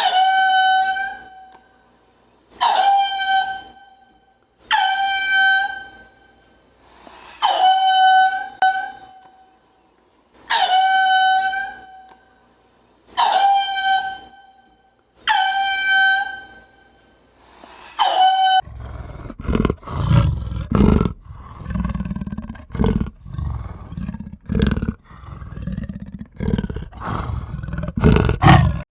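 An animal call repeated about eight times, roughly every two and a half seconds, each call high and steady in pitch and about a second and a half long. About two-thirds of the way through it gives way to a quick run of short, low, rough animal calls.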